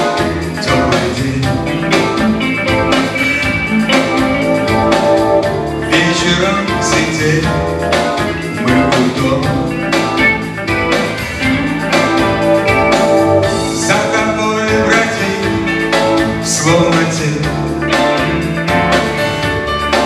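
Live pop-rock band playing an instrumental passage: electric guitar over keyboards and bass, with a steady beat.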